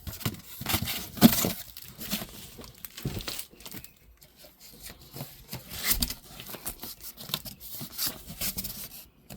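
Irregular rustling, crinkling and scraping of cardboard firework boxes and their plastic wrap being handled and shifted, broken up by small knocks.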